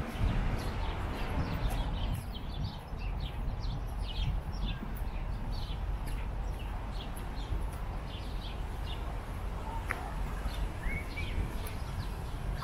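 Small birds chirping steadily in many short, quick downward-sweeping notes, over a steady low rumble of outdoor background noise.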